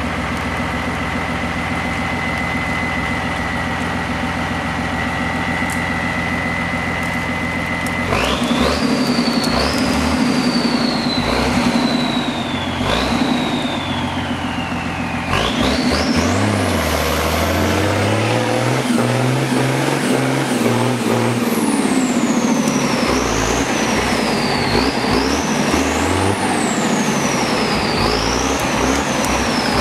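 M35A2 deuce-and-a-half's turbocharged multifuel straight-six running steadily with a constant high whistle, then from about eight seconds in working hard as the truck pushes through deep mud, the engine note rising and falling with the throttle and a high whistle sweeping up and down with each push, heaviest from about fifteen seconds.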